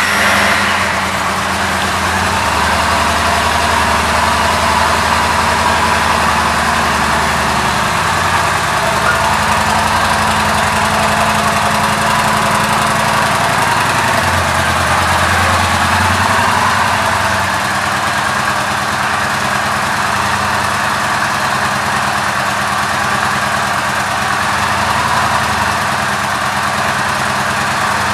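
2018 Yamaha Bolt's air-cooled 942 cc V-twin idling steadily, just after being started.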